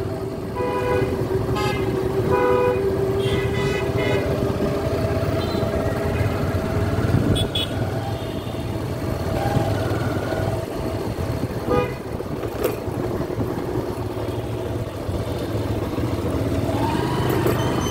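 Busy road traffic: steady engine and road noise, with vehicle horns tooting several short times in the first few seconds.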